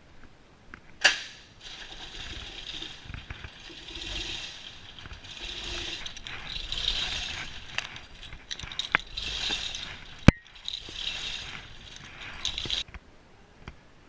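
Semi-trailer landing gear being hand-cranked, its gears ratcheting and grinding in a run of cranking strokes, with sharp metal clanks about a second in and again near the tenth second; the landing gear had got stuck.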